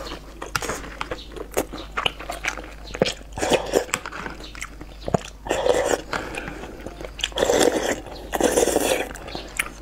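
Close-miked eating sounds: chewing with wet clicks and smacks, then noodles being slurped in several longer drawn-in gulps, the loudest in the second half.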